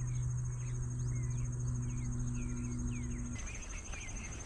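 Insects trilling steadily in a fast high pulse, with many short bird chirps over it. A steady low hum runs under them and cuts off suddenly about three seconds in.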